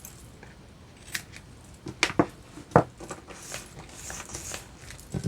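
Scissors snipping: several short, sharp snips, the loudest about two to three seconds in.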